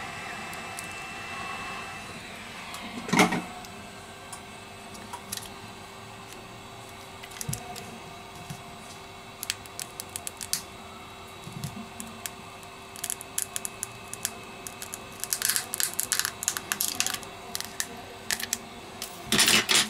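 A hot air gun blows steadily for about two seconds and stops. A sharp knock follows, then scattered clicks and crackles that thicken near the end as the glued display module of a Huawei Mate 9 is pried apart from its frame by hand.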